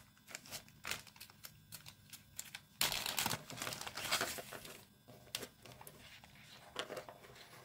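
Clear plastic zip-lock bag crinkling in the hands as it is opened, a run of short crackles and rustles, loudest from about three to five seconds in.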